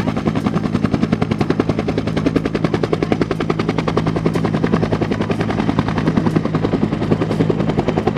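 Bell UH-1 Huey helicopter hovering low, its two-bladed main rotor beating in a fast, even chop of about ten beats a second over a steady low hum.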